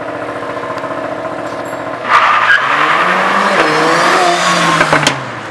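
Sports car engine with a loud exhaust: a steady engine note, then about two seconds in a hard burst of throttle, the pitch rising and falling as it revs, easing off near the end.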